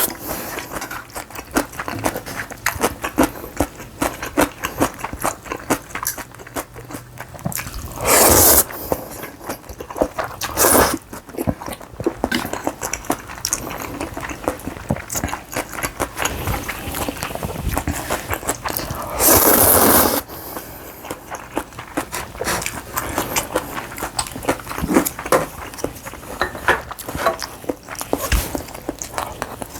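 Close-miked eating: steady chewing with many small wet clicks and crunches, and loud slurps of noodles and broth about eight seconds in, again near eleven seconds and, longest, around nineteen seconds.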